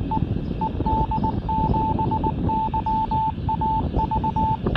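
The San Fernando ED7YAV 70 cm amateur radio repeater sending its callsign in Morse code, heard through a Baofeng UV-5R handheld's speaker. It is a single steady beep keyed in dots and dashes over the receiver's hiss, and it stops near the end.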